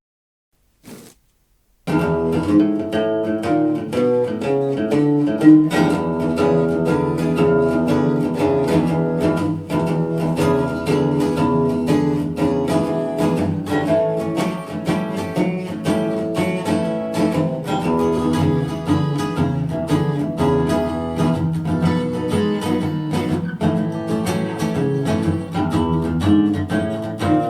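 Guitar music with quick plucked notes, starting about two seconds in after a brief faint click.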